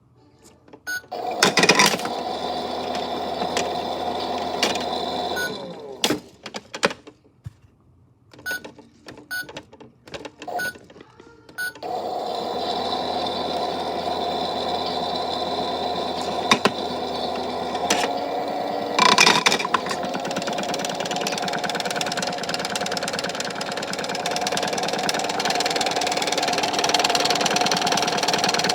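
Small electric motor of a toy washing machine running with a power brick rattling and knocking around inside its drum. It stops after about five seconds, there are scattered clicks, and it starts running again about twelve seconds in, with one loud knock a little later.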